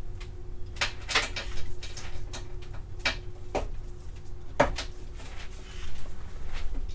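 Irregular sharp clicks and light knocks of bumper-strip hardware being handled, with the loudest knocks a little after one second in, at about three seconds and at about four and a half seconds. A faint steady hum runs underneath.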